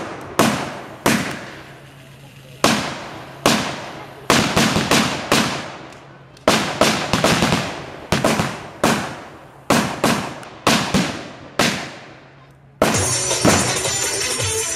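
Staged battle gunfire: rifles firing blanks, single sharp shots one after another with echoing tails, at the busiest about two a second. About two seconds before the end it gives way to music.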